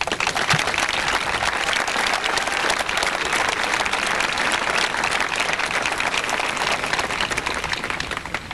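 Audience applauding: many hands clapping in a dense patter that starts abruptly and tapers off near the end.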